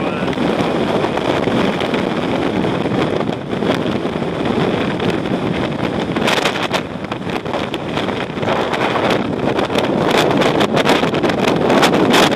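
Strong mountain wind battering the microphone: a loud, steady rushing with harder buffets about six seconds in and again near the end.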